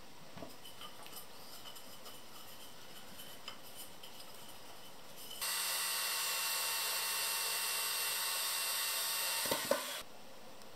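Cordless drill driver running at one steady speed for about four and a half seconds, boring into the MDF table top over a pine leg, starting about five seconds in and cutting off sharply with a couple of knocks. Before it, light rubbing and knocking of the wooden leg being held in place.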